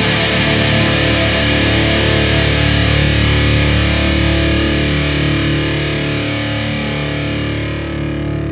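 Final chord of a heavy rock song left ringing: distorted electric guitar through a Marshall amp and a MusicMan StingRay bass sustaining one chord, slowly fading.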